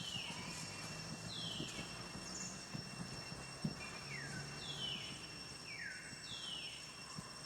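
A bird calling over and over, each call a short high note falling in pitch, about one a second. Under it runs a steady high insect drone.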